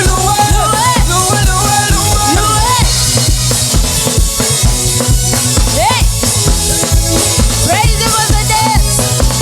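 Live gospel praise band playing an upbeat song with a driving drum kit beat and bass, with voices singing or calling out here and there.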